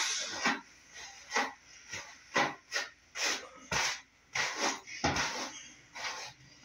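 A hairbrush dragged through long hair in quick strokes, a brushing swish about twice a second.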